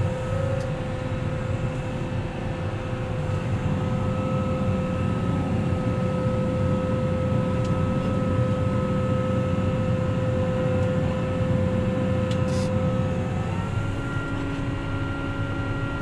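Tractor engine running steadily, heard from inside the cab, with a constant whine over its drone. The whine steps slightly higher in pitch near the end.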